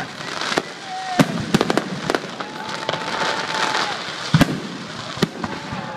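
Aerial fireworks display: a string of sharp bangs from bursting shells, the loudest about four and a half seconds in, with crackling in between. Thin whistling tones run under the bangs, one held for over a second in the middle.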